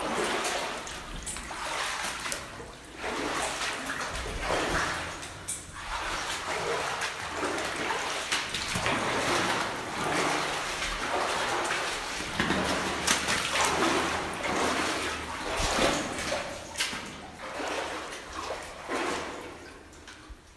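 Boots wading through shallow standing water in a flooded mine tunnel: a splash and slosh with each step, roughly one step a second.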